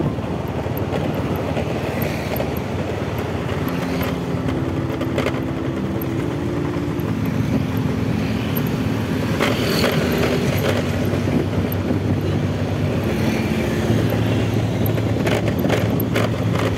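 Motorcycle riding steadily along a city street, its engine running under road noise, with other traffic around it.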